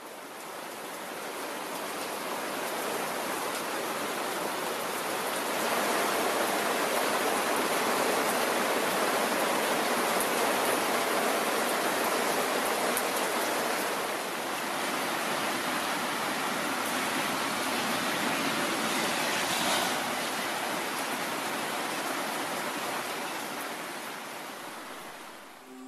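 Steady rain falling, an even hiss that fades in at the start, grows a little louder about a quarter of the way in, and fades down near the end.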